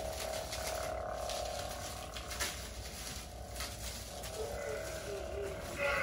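An Ultrasabers Initiate lightsaber, blade lit, humming steadily from its sound board, with wavering swing tones as it is waved and a louder clash-like burst near the end. Plastic wrap crinkles faintly underneath.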